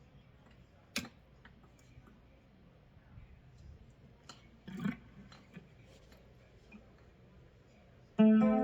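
Electric guitar (an Epiphone Les Paul) through a Marshall Code 25 amp, mostly quiet with only faint amp hiss and a few small clicks and taps from handling the strings. Near the end a loud chord is struck and rings on.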